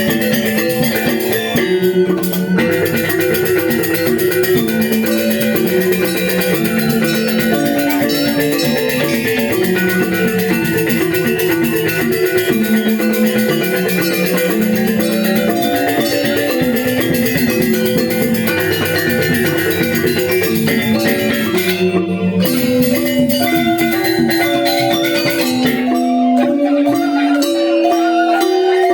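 Balinese gamelan angklung ensemble playing a tabuh kreasi: bronze metallophones struck with mallets in a busy melodic pattern over a constant high metallic shimmer. About 26 seconds in the low notes drop out and only the higher metallophones carry on.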